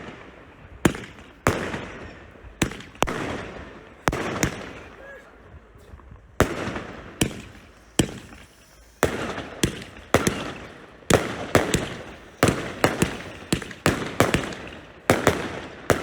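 First Class Fireworks Wakuda compound, a 132-shot firework cake, firing a string of loud bangs, each trailing off in a short decaying tail. The shots come irregularly, about one a second at first and faster with quick doubles and triples in the second half.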